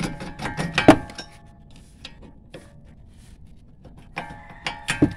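Metal hand tools clinking against the car's steel suspension parts: runs of quick, sharp metallic clicks that ring briefly, one cluster in the first second and another about four seconds in.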